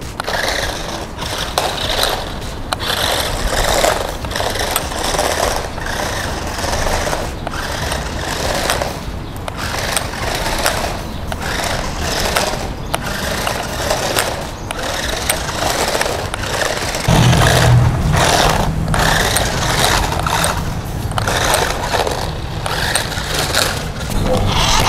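Hot Wheels RC Supercharged Shark toy car's electric motor whirring as it drives, its toothed wheels scraping over stone paving, surging and dropping in short spurts. A low rumble joins about two-thirds of the way through.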